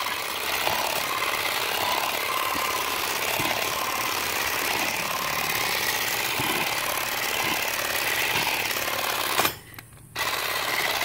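Earthwise cordless grass shear running: its small battery motor buzzes steadily as the reciprocating blade clips grass. It cuts out for a moment near the end and starts again.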